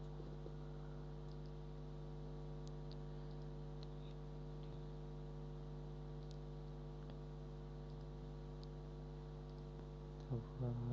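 Steady electrical mains hum with a stack of even tones, over which a few faint computer mouse clicks come now and then; a brief murmur of voice comes near the end.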